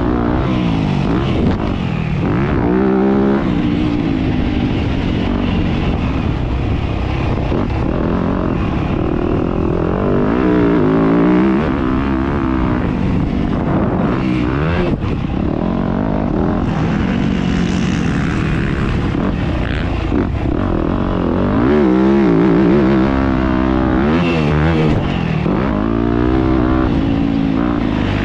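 Yamaha YZ250F four-stroke single-cylinder motocross engine under hard riding, its pitch climbing and dropping every few seconds as the bike accelerates, shifts gears and rolls off the throttle.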